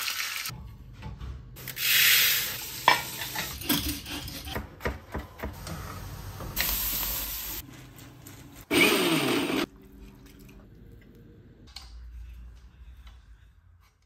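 Cooking sounds: several stretches of hissing sizzle from food in a small pan on a gas stove, with clinks and scrapes of utensils and pans in between. It is quieter in the last few seconds.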